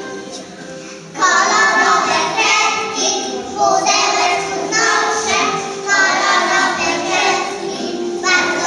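Young children singing a song together over an instrumental backing track. The accompaniment plays alone at first, and the children's voices come in loudly about a second in, singing in short phrases.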